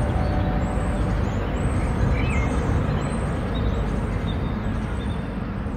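City street ambience: a steady low traffic rumble with short, high bird chirps repeating over it.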